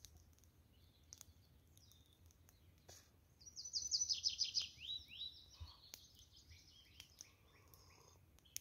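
Songbird singing: one quick run of high notes that steps down in pitch and ends in a few lower sweeping notes, lasting about two seconds from halfway through. Other birds chirp faintly around it.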